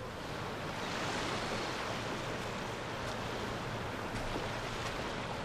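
Beach ambience: sea surf washing steadily onto the shore, a continuous even rush with no distinct breaks.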